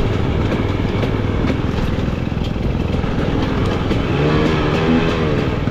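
Off-road dirt bike's engine running under load on a trail, the revs swinging up and down a few times from about four seconds in, with scattered knocks and clatter from the bike over the ground.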